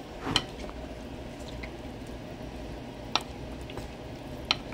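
Kitchen handling sounds as a handful of fresh parsley goes into a small crock pot of soup: a sharp tap just after the start, then two more, one about three seconds in and one near the end, over a faint steady low hum.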